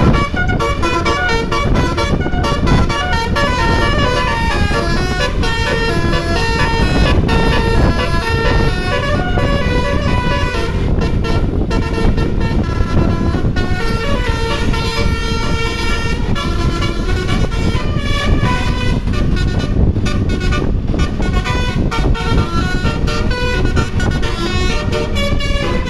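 Indonesian bus's basuri musical air horn playing a stepping melody of horn notes continuously, over a steady low rumble.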